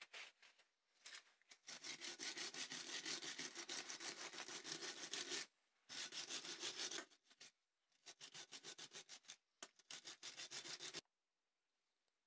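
Wire brush scrubbing the rusty threaded screw of an old book press, wet with engine degreaser, in fast back-and-forth strokes. The scrubbing comes in four runs, the longest first, and stops about eleven seconds in.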